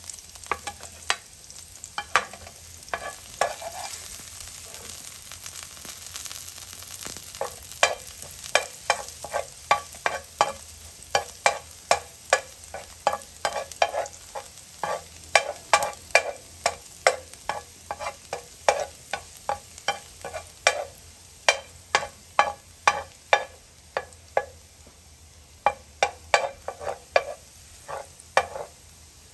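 Minced garlic sizzling in hot oil in a frying pan while a metal spatula stirs it, scraping and knocking against the pan about twice a second. The stirring thins out for a few seconds near the start, leaving mostly the sizzle.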